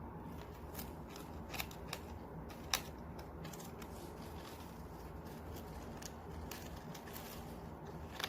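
Winter white dwarf hamster gnawing and rummaging at a dried lotus seed pod: scattered dry clicks and crackles, with a sharper click a little under three seconds in, over a steady low hum.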